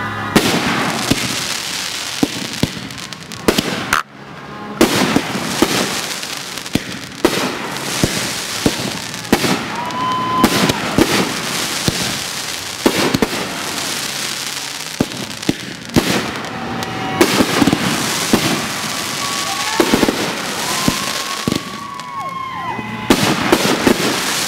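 Consumer aerial fireworks going off in a rapid barrage: a dense run of sharp bangs from launches and bursts over a steady crackling hiss, with a brief lull about four seconds in. A few short wavering tones sound over the din.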